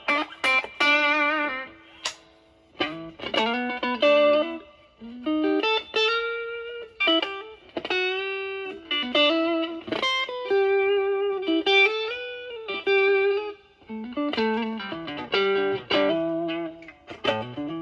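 Fender Stratocaster with alnico single-coil pickups through a ProCo Brat distortion pedal (OP07 chip) at moderate gain into a Marshall Valvestate amp, playing bluesy single-note lead lines with held, bent and vibratoed notes. Near the end the tone turns cleaner.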